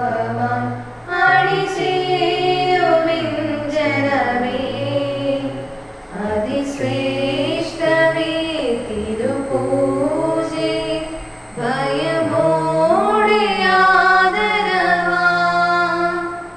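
Church choir with female voices singing a Malayalam hymn during the Mass, in three long phrases over a steady low note, stopping just before the end.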